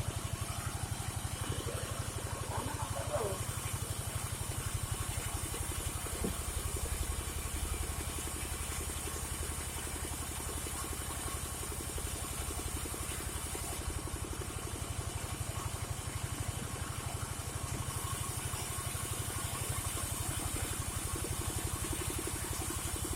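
Engine of a band sawmill running steadily at an even pace.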